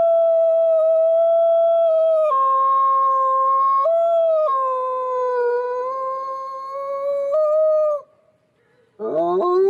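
A man howling like a wolf. One long held howl drops in pitch a couple of seconds in, jumps briefly up and back again around four seconds in, and breaks off about eight seconds in. A second howl starts near the end with a rising swoop.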